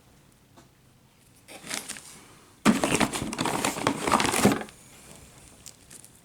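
Plastic packaging crinkling as it is handled: a short rustle about a second and a half in, then a louder stretch of crinkling lasting about two seconds.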